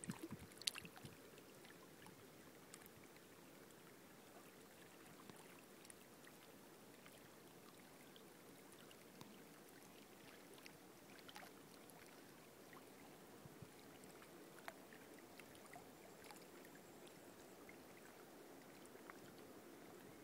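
Near silence: faint lapping of lake water against a stony shore, with scattered small ticks.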